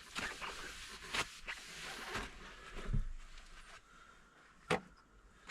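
Cloth wiping down a new exhaust muffler: faint, intermittent rubbing strokes for the first few seconds, then quieter, with one sharp click near the end.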